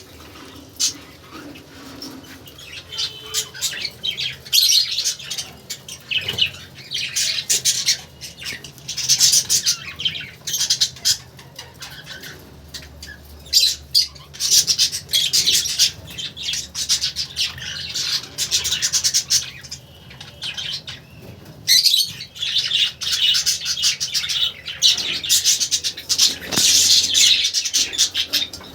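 Budgerigars chirping and chattering in rapid high-pitched bursts, again and again.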